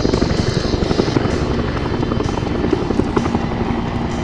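A formation of four Bell UH-1N twin-engine Huey helicopters flying past, their two-bladed main rotors beating with a rapid, steady chop.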